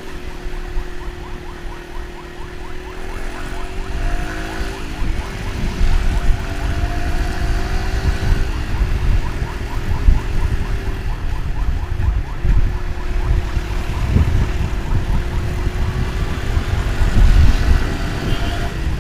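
Motorcycle engine running at road speed, its pitch climbing and dropping several times, with heavy wind rumble on the microphone that grows louder as the ride goes on.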